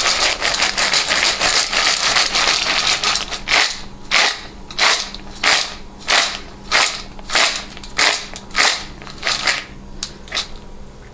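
Dry dog kibble poured into a bowl in a dense, continuous rattle. About three and a half seconds in it gives way to a run of regular rattling strokes, about one and a half per second, that fade out: the wet and dry food being mixed.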